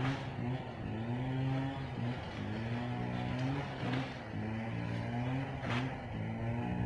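A motor runs with a steady low drone whose pitch shifts slightly now and then. Three short, sharp clicks or crunches stand out: one at the start, one about four seconds in, and one near six seconds.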